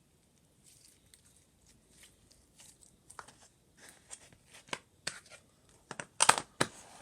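Homemade slime with small beads mixed in, squeezed and worked by hand, giving irregular crackles, pops and squelches that grow louder, loudest near the end.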